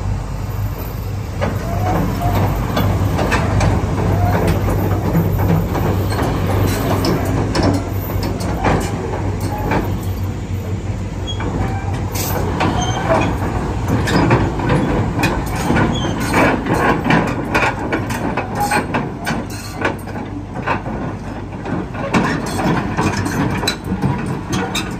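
Hitachi ZX120-5B tracked excavator's diesel engine running steadily while its steel tracks clank and knock as it drives down off a steel trailer deck and ramps. The clanking gets busier about halfway through.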